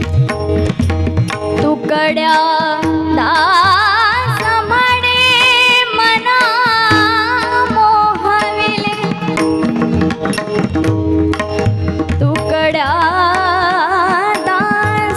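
Marathi bhajan music: an ornamented, wavering sung melody over a steady harmonium drone, with tabla beats throughout.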